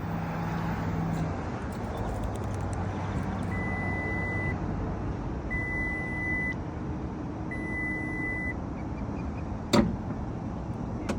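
2024 Ford F-150 Lightning's power frunk closing: three one-second warning beeps about two seconds apart, then a single sharp thump near the end as the lid shuts.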